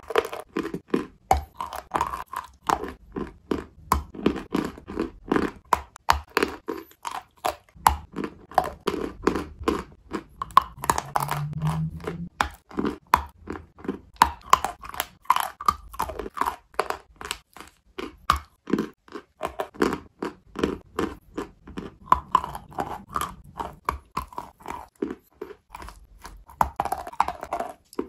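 Close-up crunching and chewing of bitten-off chunks of white chalk, a fast, unbroken run of sharp crackles, several a second.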